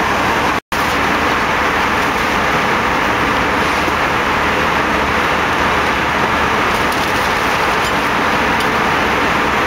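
Steady, loud rush of an Airbus A319's cabin in flight, the even noise of engines and airflow. It cuts out for a split second about half a second in.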